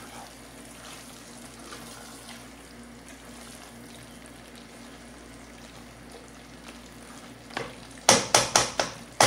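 Mutton in its yogurt marinade cooking in a pot, with a steady low sizzle and bubbling as a spoon stirs it. From about eight seconds in, about half a dozen sharp, loud knocks of the spoon against the pot in quick succession.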